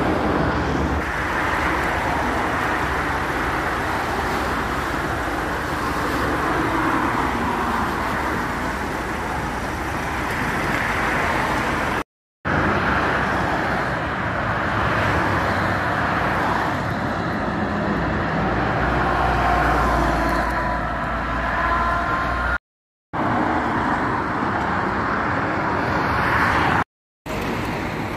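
Steady motorway traffic noise: the rumble and tyre hiss of cars passing at speed. The sound cuts out completely for a fraction of a second three times, midway and twice near the end.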